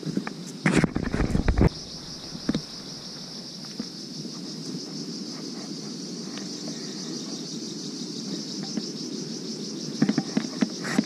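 Steady, high-pitched trilling of insects in the forest. Footsteps and rustling on the dirt trail come in a cluster of knocks about a second in and again near the end.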